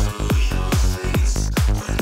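Psytrance music from a live DJ set: a pounding four-on-the-floor kick drum a little more than twice a second, with a rolling bassline filling the gaps between kicks.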